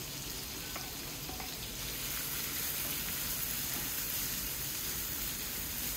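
Finely chopped onion, freshly added, sizzling steadily in melted butter and oil in a frying pan while it is stirred with a silicone spatula. The sizzle grows a little louder about two seconds in.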